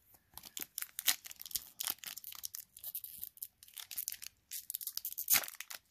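Hockey trading card pack's wrapper being torn open by hand: irregular crinkling and tearing, with one louder rip near the end.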